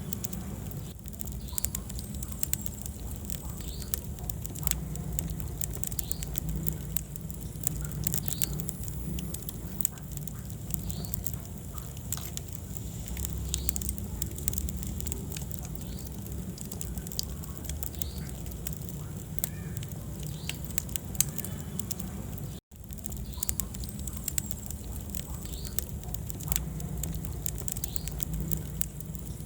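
Wood fire burning in a fireplace, crackling and popping continually over a low rumble of flames. The sound cuts out for a split second about two-thirds of the way through.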